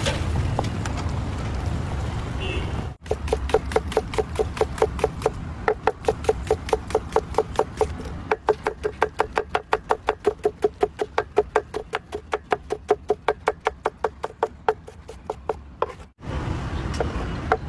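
A kitchen knife chopping an onion on a wooden board: quick, even strokes at about four a second, starting about three seconds in and stopping near the end. Before that there is a steady low street-stall noise.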